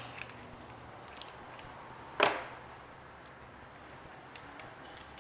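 The hard shell of a boiled lobster's claw cracking open once, loudly, about two seconds in, with a few faint small clicks of shell around it. The lobster is hard-shell, not soft-shell: its shell does not crush.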